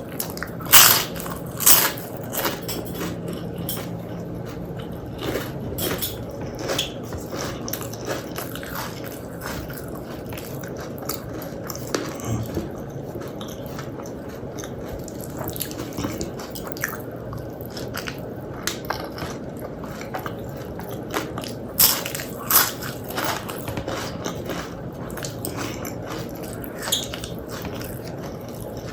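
Close-miked chewing and wet mouth sounds of someone eating a meal of rice and side dishes. A few louder crunchy bites come about a second in, again at two seconds, and twice around three-quarters of the way through.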